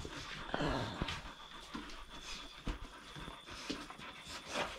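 Pit bull panting close by, with a few brief clicks and knocks.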